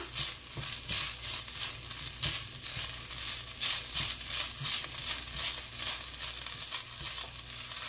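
Flaked smoked herring with chopped onions and habanero pepper sizzling in hot oil in a pan, with a spoon mashing and stirring it against the pan in repeated short strokes.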